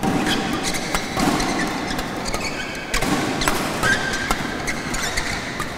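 Badminton doubles rally: sharp racket strikes on the shuttlecock about once a second, with short squeaks of shoes on the court mat over the steady noise of a crowd in the hall.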